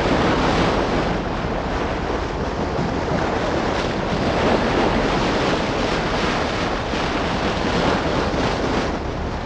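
Steady rush of wind and sea past a warship's deck as she goes ahead at full speed, with a low rumble underneath.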